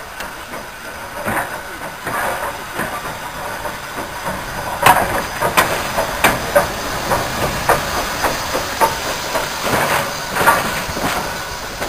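LMS Fowler 3F 'Jinty' 0-6-0 tank engine No. 47406 moving slowly under steam, with a steady hiss of steam and a run of sharp beats about every two-thirds of a second. The beats are strongest from about halfway in and again near the end.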